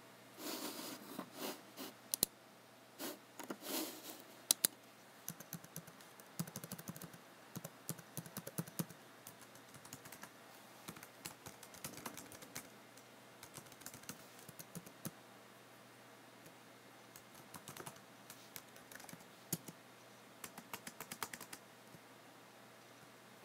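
Typing on a computer keyboard: quick runs of key clicks in irregular bursts, with a few louder, fuller strokes in the first few seconds and short pauses between runs.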